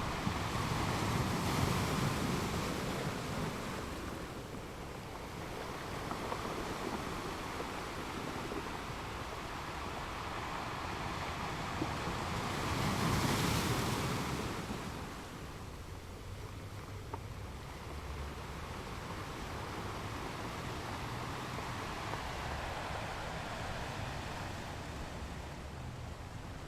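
Sea waves washing on the shore in a continuous surf hiss, swelling louder twice: once about two seconds in and again near the middle.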